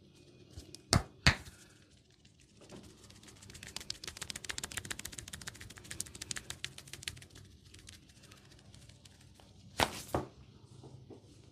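Head-massage hair pulling: a fist of hair gripped and tugged close to the microphone gives a fast, fine crackling for several seconds in the middle. Two sharp smacks sound about a second in and two more near the end.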